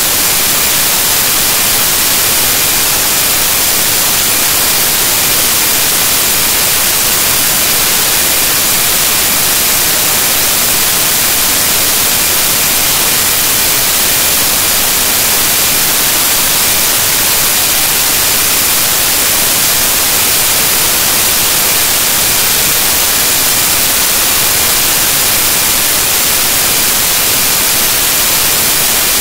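Loud, steady static hiss like white noise, unchanging throughout, with no other sound: the noise of corrupted digital audio, matching the garbled picture.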